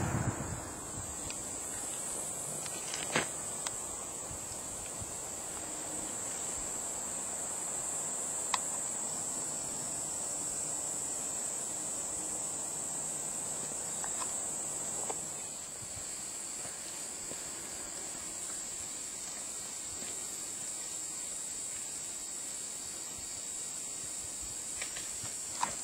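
Insects droning steadily at a high pitch in dry scrub, with a few short clicks now and then.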